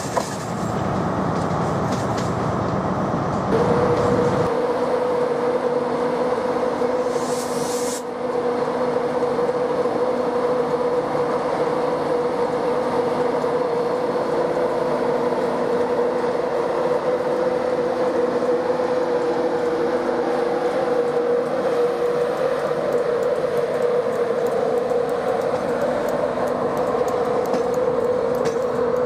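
For the first few seconds, a CrossCountry Voyager diesel multiple unit running with a low rumble. Then an InterCity 225 train, made up of Class 91 electric locomotive 91102, Mk4 coaches and DVT 82208, pulls slowly out of the station with a steady hum. A short hiss comes about seven seconds in.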